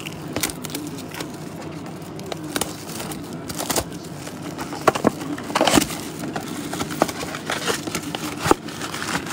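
Plastic wrap and foil card packs crinkling and crackling as trading-card blaster boxes are opened and handled, with scattered sharp clicks over a steady low background hum.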